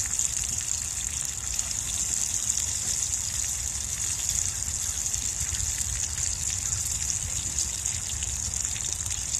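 Bacon sizzling steadily in a frying pan on a portable gas camp stove: a constant high hiss over a low rumble.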